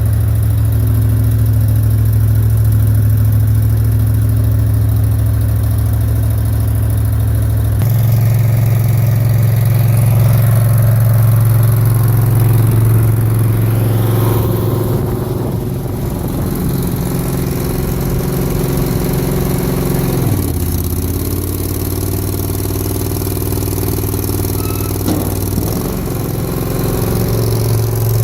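Mini skid steer's engine running steadily under the operator, its tone shifting about a third of the way in, its speed dropping about two-thirds through and picking back up near the end.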